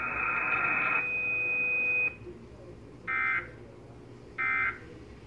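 Emergency Alert System broadcast: a steady high tone cuts off about two seconds in, then two short buzzy data bursts about a second and a half apart. These are the SAME digital end-of-message bursts that close an EAS alert.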